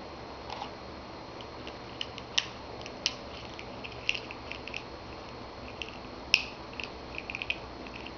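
African grey parrot gnawing a hard plastic shape-sorter block held in its beak and foot: irregular small clicks and crunches of beak on plastic, the sharpest about six seconds in.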